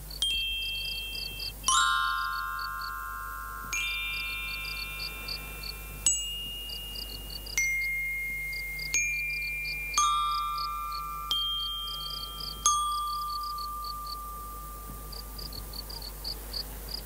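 A series of about nine bell-like chime strikes at differing pitches, each ringing out and slowly fading, spread over the first thirteen seconds: cartoon sound effects of fireflies lighting up one after another. Crickets chirp steadily throughout.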